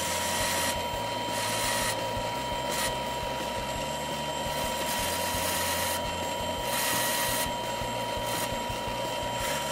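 Drill press running with a steady whine while an 82-degree countersink bit cuts countersunk screw holes into a ski. The cutting noise comes and goes in several short stretches as the bit is fed in a little at a time.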